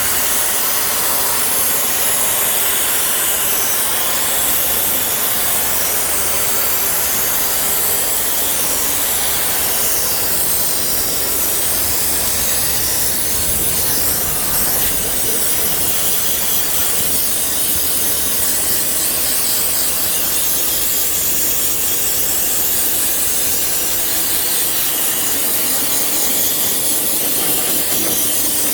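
Steady hiss of a pressurised spray cleaning a car's radiator, A/C condenser and intercooler cores, running evenly with no breaks and heavy in the high end.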